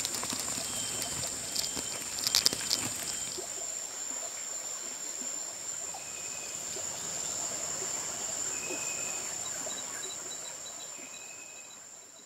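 Rainforest insects keeping up a steady high-pitched buzz, with short higher calls now and then and a cluster of sharp clicks about two seconds in. It fades out near the end.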